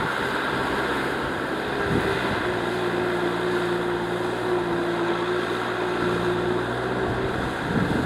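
Farm tractor engine running steadily under load as it pulls a disc plough through deep wet mud.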